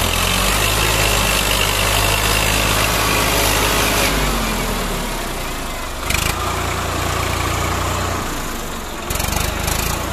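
Swaraj 744 FE tractor's three-cylinder diesel engine running steadily, its note dropping a little about four seconds in. A brief knock comes about six seconds in and a short clatter near the end.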